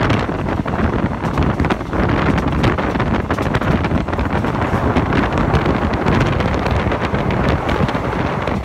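Wind buffeting the microphone: a loud, steady rush of noise with constant gusty flutter.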